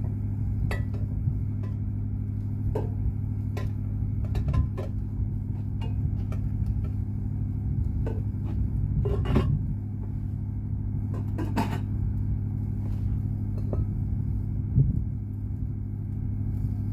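Steady low engine drone, an even pitched hum that does not change, with scattered light clicks and a few louder knocks as the kettle grill is handled.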